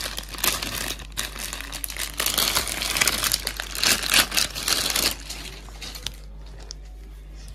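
Plastic parcel packaging crinkling and rustling as hands open it and pull the contents out. The crinkling is dense for the first five seconds or so, then dies down.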